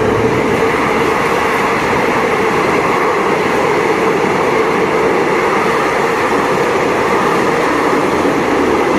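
Passenger train running through the station at speed: a steady, loud noise of wheels on rail as it passes.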